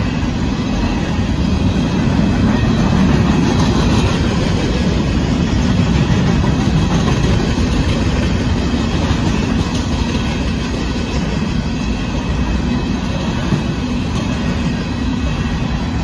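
Covered hopper cars of a freight grain train rolling past, a steady rumble of wheels on rail.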